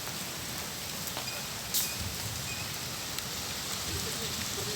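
Steady hiss of rain falling, with one sharp click a little under two seconds in.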